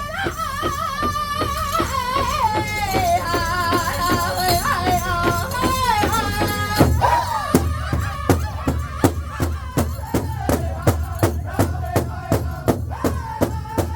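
Powwow drum group singing a contest song in high, wavering voices over a steady beat on the big drum. About halfway through the singing drops away and the drum carries on alone, about three strokes a second, until the voices come back in near the end.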